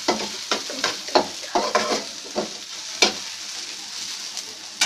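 Snake gourd seeds and mustard seeds sizzling as they fry in mustard oil in a metal pan while being stirred. Irregular clicks and scrapes from the stirring against the pan sound through the sizzle, with one sharp click near the end.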